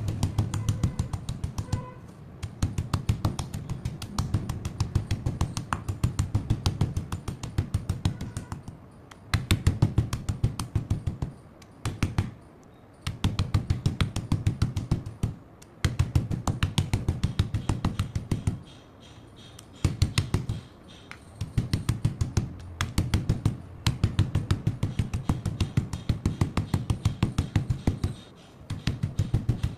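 Dry slate chips crunching and crackling as a stick is pressed and ground into them in a bowl. The crunching comes in repeated runs of rapid clicks, each about two seconds long, with short pauses between strokes.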